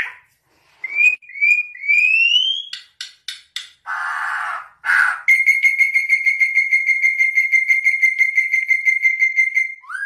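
Troupial singing clear whistled notes: a few quick rising whistles, then one long whistle held at a steady pitch with a fast flutter for about four and a half seconds.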